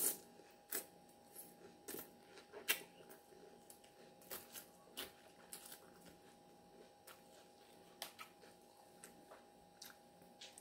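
Faint eating sounds of a person chewing salad: irregular short crunches and wet clicks of chewing lettuce, with a fork now and then tapping and scraping in a glass bowl. A faint steady hum lies underneath.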